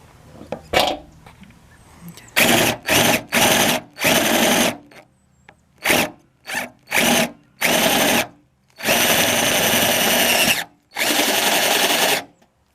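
Power drill running in about a dozen start-stop bursts, short trigger pulls at first and longer runs later, the longest about a second and a half.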